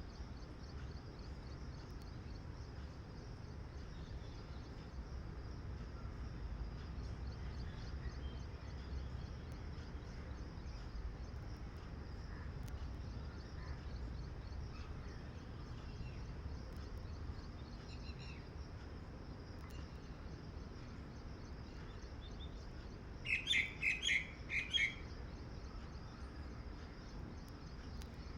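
A quick run of four loud, high chirping calls near the end, over a steady pulsing insect-like trill and a low rumble.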